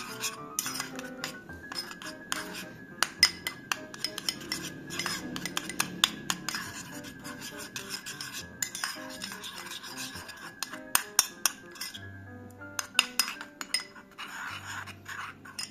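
Metal spoon stirring a thick tomato-paste sauce in a small bowl: irregular clinks of the spoon against the bowl's sides, with wet scraping near the end.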